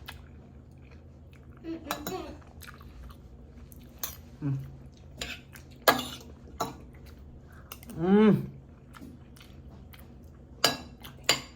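Cutlery clinking and scraping against a plate, with chewing in between, during a meal of chicken stew and rice. A short hummed vocal sound rises and falls about eight seconds in.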